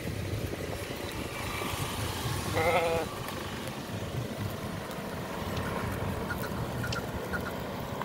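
A sheep in a grazing flock bleating once, a short quavering bleat about two and a half seconds in, over a steady low background rumble.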